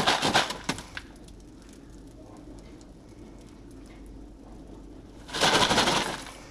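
Foil-domed stovetop popcorn pan shaken back and forth on a glass-top electric stove: a rough scraping rattle of the pan and popped kernels. It comes in two bouts of about a second each, one at the start and one about five seconds in, with a quieter stretch between.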